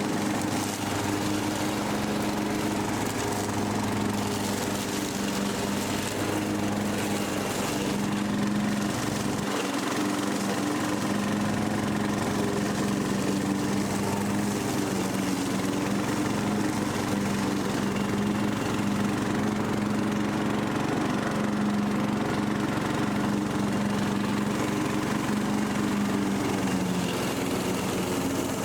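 Rebuilt Briggs & Stratton 17.5 HP lawn mower engine running at a steady speed, its speed dropping slightly near the end. It runs smoothly now that its carburetor trouble has been fixed.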